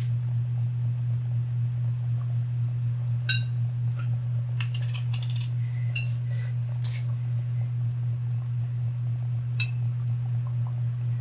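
Scattered light clinks of a glass bottle and a metal ladle against a stew pot, the sharpest about three seconds in and a cluster near the middle, over a steady low hum.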